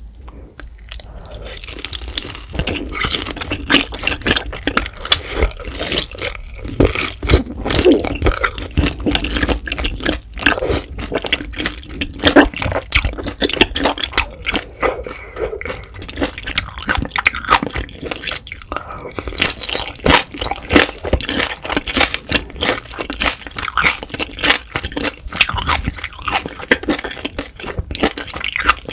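Close-miked chewing of a mouthful of grilled beef intestine: a dense, irregular run of crackly clicks and sticky, wet mouth smacks, starting about a second in.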